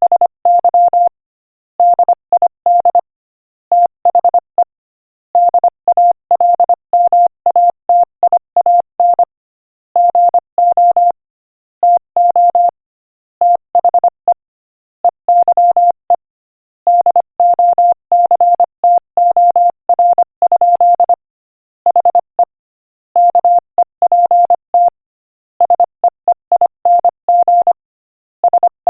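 Morse code sent at 25 words per minute: a single steady mid-pitched beep keyed on and off in quick dots and dashes, in letter and word groups separated by short pauses.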